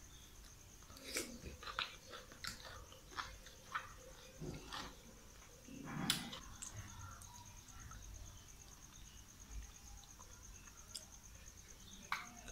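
Faint chewing and small mouth clicks of a person eating a spoonful of catfish curry, with a louder mouth sound about six seconds in.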